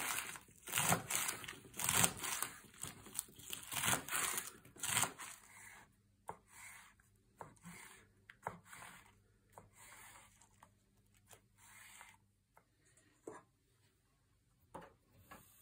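Kitchen knife slicing through lettuce leaves on a wooden cutting board, about two strokes a second. From about six seconds in come fainter, sparser cuts through mushrooms.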